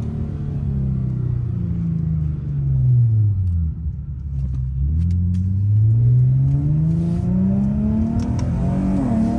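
Car engine and exhaust, fitted with a second resonator to cut drone and rasp, on the road. The revs fall away over the first few seconds, then the engine pulls up steadily in a long rising note, with a short dip at a gear change near the end.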